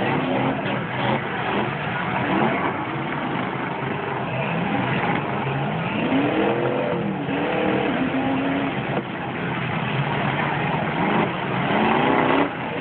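Several demolition derby pickup trucks' engines revving, their pitch climbing and falling again and again over a steady din of engine noise, most strongly about six seconds in and near the end.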